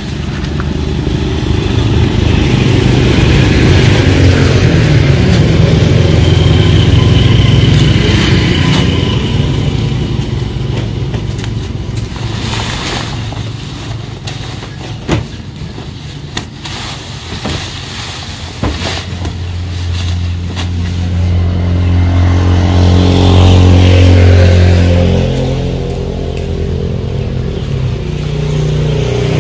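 A motor vehicle engine running, growing louder twice as its pitch swells and falls, with a few sharp knocks in the quieter stretch between.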